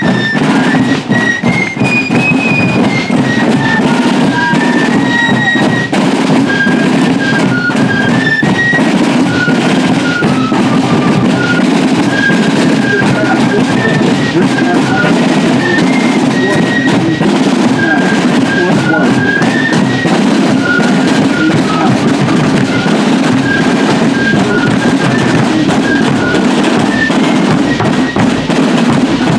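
Fife and drum corps playing a march: a high fife melody over snare and bass drums beating steadily.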